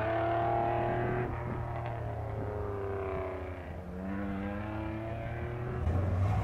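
Loud V6 car engine through a muffled exhaust, driven hard on an autocross course: its pitch falls slowly for about four seconds as it eases off, then climbs again as it accelerates.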